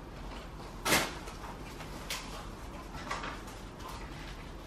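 Cardboard box and packaging being handled during unpacking: a sharp knock about a second in, a lighter one a second later, then soft taps and rustles.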